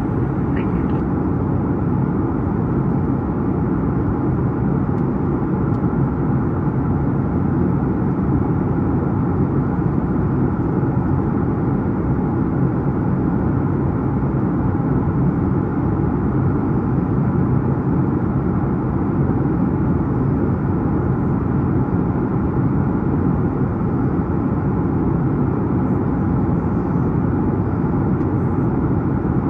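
Steady cabin drone of a Boeing 737-9 MAX in flight, heard from inside the cabin: its CFM LEAP-1B engines and airflow make an even, low rumble with a faint steady hum.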